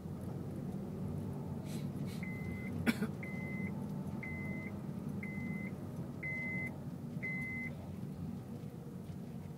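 Steady low engine and road rumble inside a 2006 Honda Civic's cabin in slow stop-and-go traffic. About three seconds in there is one sharp click, and six short, high electronic beeps come at about one a second.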